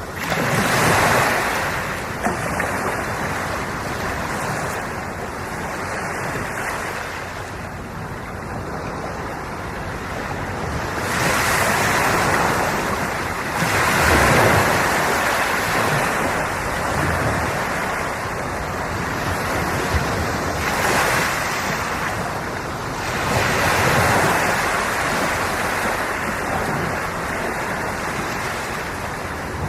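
Ocean waves breaking and washing on the shore, swelling and falling back every few seconds, with wind buffeting the microphone.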